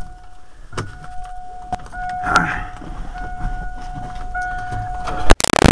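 Steady electronic warning tone from the Ford F-250's dashboard, broken off and resumed several times, with clicks and rustling as someone settles into the cab. A sudden loud burst of noise cuts in near the end.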